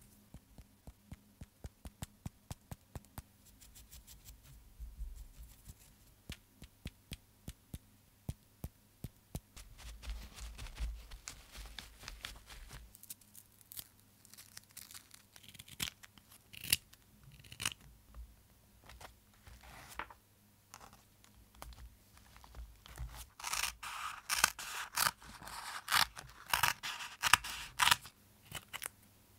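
Scissors snipping through a strip of cork in a run of crisp cuts near the end, the loudest sound. Before that, a paintbrush works paint on a palette with many small, evenly spaced ticks, followed by scattered handling clicks.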